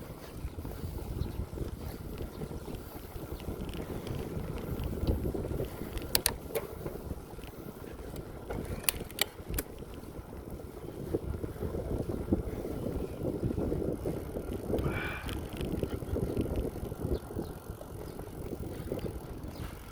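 Wind rushing over the microphone and tyre rumble from a bicycle being ridden along a paved path. A few sharp clicks come about six seconds in and again about nine seconds in, and a brief higher-pitched sound comes near fifteen seconds.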